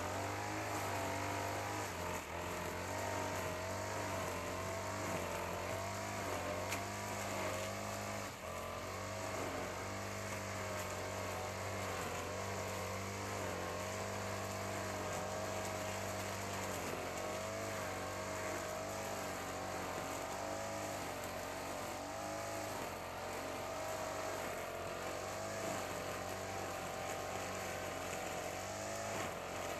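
Honda GX35 four-stroke brush cutter engine running steadily while cutting grass, its pitch wavering slightly up and down as the load changes.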